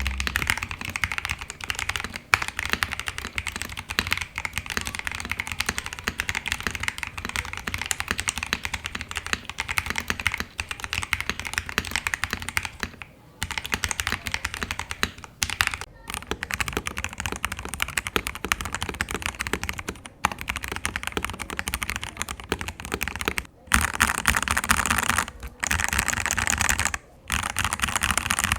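Royal Kludge RK68 mechanical keyboard being typed on fast and steadily, a dense run of key clacks with a few brief pauses.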